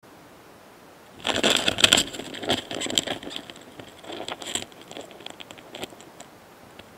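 Close-miked mating pair of Gaurotes doris flower longhorn beetles: a burst of dense crackling and scraping starts about a second in, loudest at first, then thins out into scattered ticks over the next few seconds.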